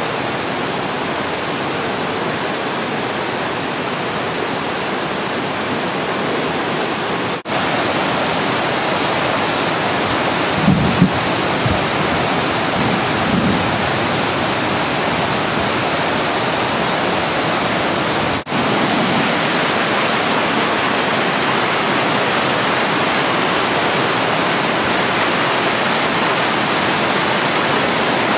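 Swollen, flooding creek water rushing in a loud, steady noise. The sound cuts out for an instant twice, and a few low bumps come about eleven seconds in.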